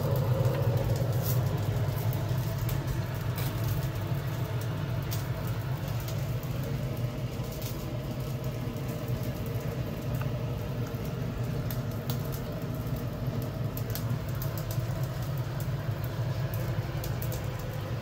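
Steady low rumble of a gas stove burner flame, with scattered small crackles from a whole fish grilling on a wire rack above it.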